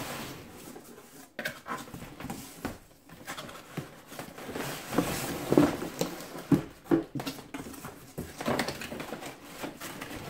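Cardboard packaging being handled: box flaps folded open and inner cardboard inserts slid out, scraping and knocking on a wooden tabletop, with short squeaks of cardboard rubbing on cardboard.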